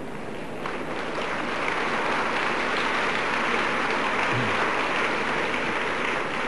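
Audience applauding, swelling about a second in and dying down near the end.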